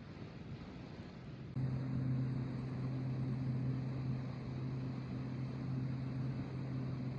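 Combine harvester's diesel engine running with a steady low hum over a wash of field noise. It cuts in abruptly about a second and a half in.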